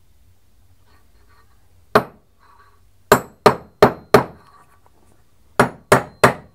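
Hammer tapping dowel pins into a machined steel die body, metal striking metal with sharp ringing blows. There is a single blow about two seconds in, then two runs of four quick strikes, about three a second.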